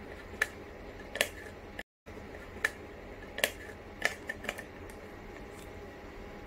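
Sharp plastic clicks and taps, about seven spread irregularly, from the hard plastic cap of a silicone collapsible water bottle being handled and twisted, over a steady low hiss.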